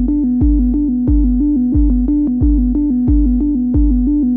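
Background electronic music: a deep kick drum about every two-thirds of a second under a held synthesizer chord, with short keyboard notes stepping above it.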